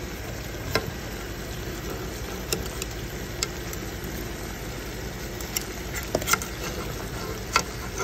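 Thick gravy simmering in a skillet, stirred with a metal spatula that clinks and scrapes against the pan several times over a steady low hum.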